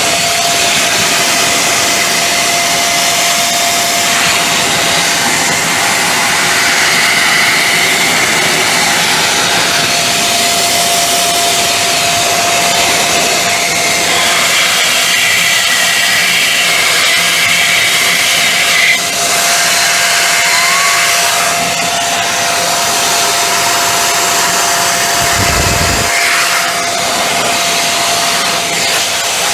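XPOWER Airrow Pro electric computer duster blower running continuously: a loud, steady rush of air over a constant motor whine, blasting dust out of an open desktop PC case.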